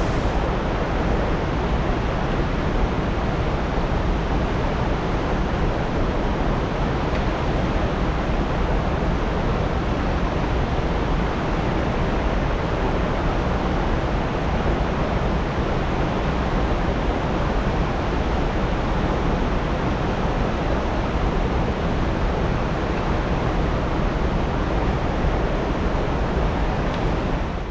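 Steady rushing noise of fast-flowing river water running through rapids, unbroken and even, cutting off abruptly at the very end.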